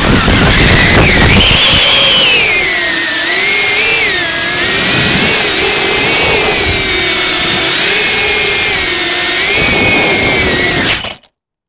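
Small FPV quadcopter's brushless motors and propellers whining close to an onboard camera, the pitch rising and falling with the throttle as it descends. The sound stops suddenly near the end as the drone comes down.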